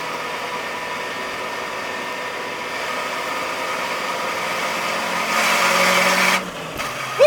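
A Nissan S13's four-cylinder engine running at steady revs, heard from inside the cabin. It gets louder about five seconds in, then drops off abruptly near the end as the throttle is lifted and the revs fall.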